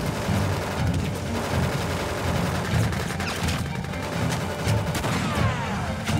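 Soundtrack gunfire: rifles and submachine guns firing continuously in a battle, mixed with background music.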